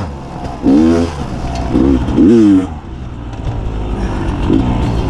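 Beta 300 RR two-stroke single-cylinder dirt bike engine revving in short bursts of throttle, rising and falling in pitch about three times in the first three seconds, then running at lower revs.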